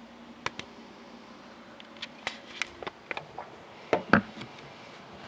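Handling noise: about a dozen light, irregular clicks and knocks as a handheld camera is moved around, with the two loudest knocks close together about four seconds in.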